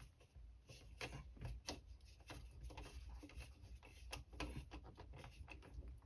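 Faint scattered clicks and light scraping of a screwdriver tightening the ground screw on a GFCI receptacle.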